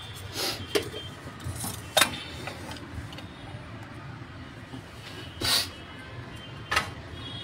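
About five short knocks and scrapes of a spatula and pan against a steel plate as cooked filling is scraped out and spread, over a steady low rumble.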